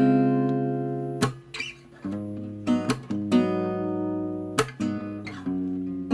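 Background music: an acoustic guitar strumming chords, each strum ringing out and fading, with no singing.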